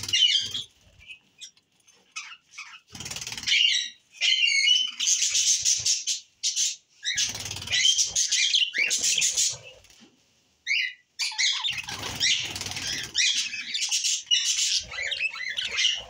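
A cage of budgerigars chirping and chattering in bursts of busy, high-pitched warbling, with a short lull about ten seconds in.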